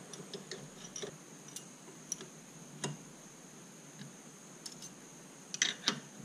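Scattered small metallic clicks and taps of a screwdriver working the retainer clips on a master cylinder's lid, with a louder pair of clicks near the end.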